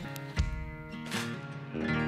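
Background music: acoustic guitar being plucked and strummed, with a new chord ringing out near the end.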